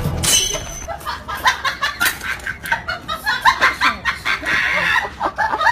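A rapid run of short, high clucking calls, many a second, coming in uneven bursts.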